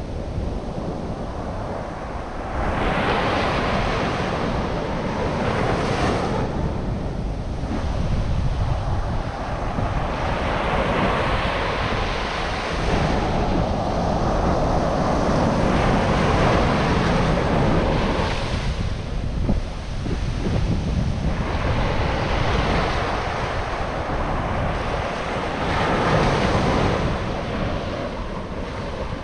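Ocean surf breaking and washing up on a beach, swelling and easing every few seconds, with wind buffeting the microphone.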